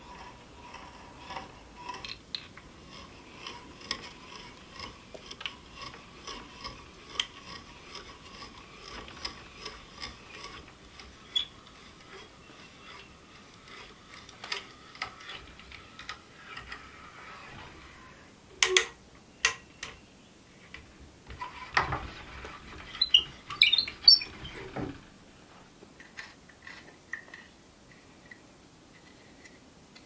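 Hand brace turning an auger bit into a wooden handle clamped in a vise: rapid irregular clicking and ratcheting as the bit cuts, over a thin steady whine that fades out about a third of the way through. A few louder sharp knocks come about two-thirds through, then only faint light ticks.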